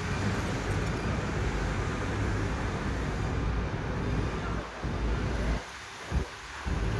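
Road traffic noise mixed with wind rumbling on the microphone of a moving bike; the rumble drops out briefly a few times near the end.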